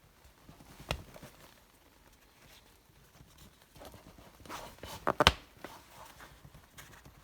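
Scattered clicks and knocks of hand work on a removed car seat: one sharp click about a second in, then a quick cluster of knocks around five seconds in, the last one the loudest.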